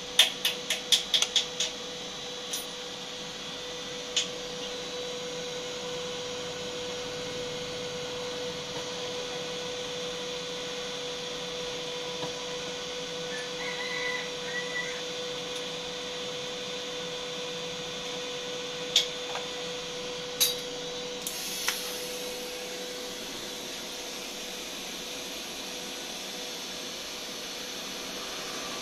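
TIG-200GD AC/DC inverter welder: a quick run of short beeps as its panel buttons are pressed, then its cooling fan running steadily with a faint steady tone. About three-quarters of the way through, a high hiss joins in, the TIG arc burning.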